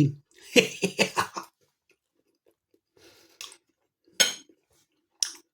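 A mouthful of crispy toast topped with baked beans being chewed, with crunching from the toast: a dense run of crunches about half a second to a second and a half in, then a few single sharp crunches later.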